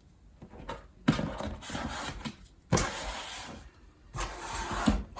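Tarot cards being handled: three rustling, sliding passes of the cards against each other, each about a second long, with a few light taps between.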